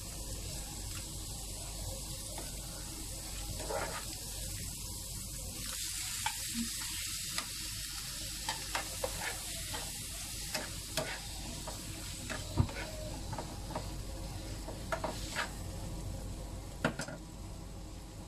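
Onions and chicken sizzling in a nonstick frying pan while a plastic spoon stirs them, with short scrapes and taps of the spoon against the pan. The sizzle grows louder about six seconds in, as raw chicken goes into the hot pan, and the taps come more often after that.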